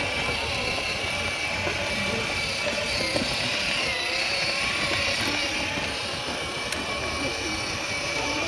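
Battery-powered ride-on toy car's small electric motor and gearbox whining steadily as it drives, over a constant hum of street noise.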